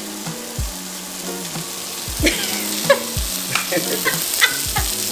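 Shrimp sizzling in oil in a cast iron skillet: a steady frying hiss, with a few dull knocks.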